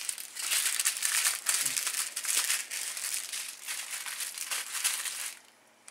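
Small plastic bags of diamond painting drills crinkling and crackling as they are handled, stopping shortly before the end.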